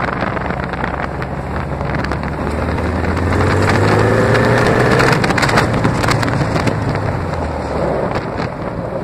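Small off-road go-kart engine running as the kart drives over a gravel road, speeding up about three seconds in. Gravel crunches and clicks under the tyres, and wind buffets the microphone.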